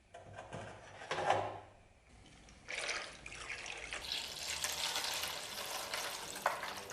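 Liquid running and splashing in a steady rush, after a short splash about a second in, as the rusty axe parts are worked in rust remover.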